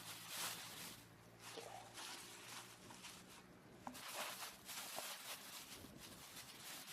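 Faint rustling and handling noises in a few short surges, over a faint low hum that fades out about two-thirds of the way through.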